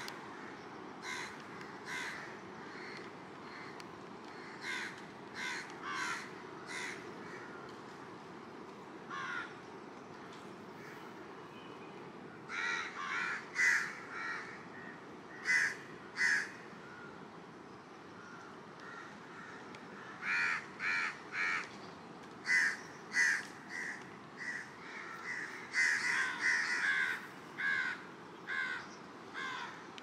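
Crows cawing over and over, short harsh calls, sometimes singly and sometimes several in quick succession, over a steady low wash of surf.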